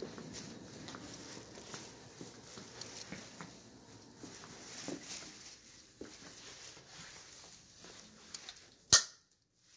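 Footsteps and small taps and shuffles from a person walking through rooms with a handheld camera. About nine seconds in comes one sharp, loud click.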